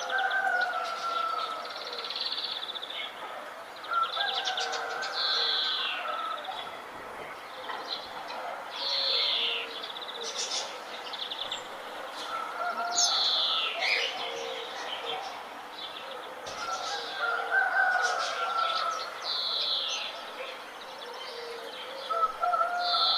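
Several birds chirping and singing together, with many short chirps, quick downward-sweeping notes and warbled phrases overlapping without pause.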